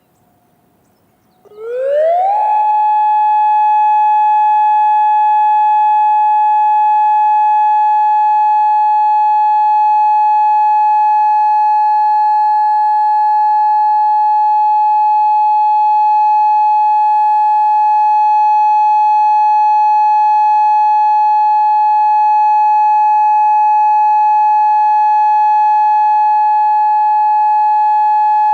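Federal Signal Modulator 6024B electronic outdoor warning siren starting its steady alert signal. About a second and a half in, it sweeps quickly up in pitch, then holds one loud, steady high tone.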